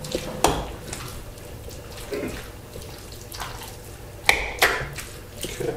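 A metal spoon stirring diced tomato into mashed avocado in a stone mortar: wet squishing with a few sharp clicks of the spoon against the bowl, the loudest two about four and a half seconds in.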